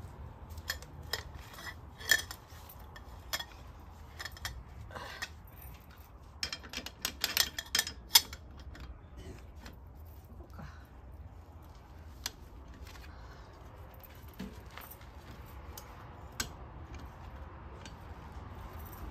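Metal tools clinking and knocking in scattered strokes, with a busier run of sharp clinks about seven to eight seconds in.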